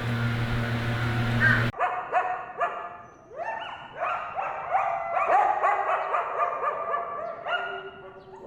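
An animal's repeated short, high yelping calls, each rising and then falling in pitch, starting abruptly about two seconds in after a steady low hum cuts off.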